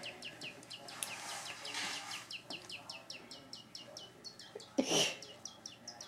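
A travel coffee mug chirping: a fast, even run of short, high, bird-like chirps, several a second, each dropping in pitch. A brief, louder, rougher noise cuts in about five seconds in.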